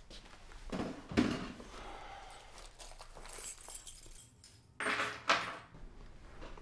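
Tools on a handyman's tool belt jangling and clinking as he sits down, with a loud clatter about a second in and another brief clatter about five seconds in.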